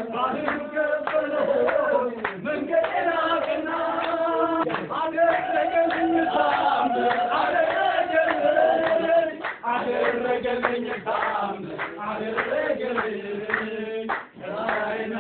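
A group of voices singing together, with long held notes, accompanied by handclaps.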